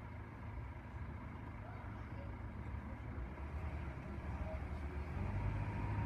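Level crossing warning alarm sounding as a steady tone over a low traffic rumble, with the barriers down and the road lights flashing. About five seconds in, a deeper hum comes in and grows louder.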